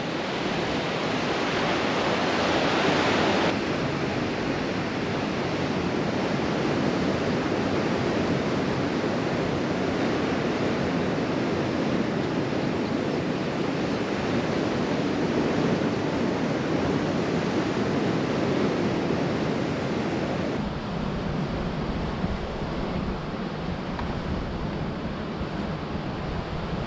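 Sea surf breaking and washing over granite rocks, a steady rushing, with wind on the microphone; about three-quarters of the way through a heavy low wind rumble takes over.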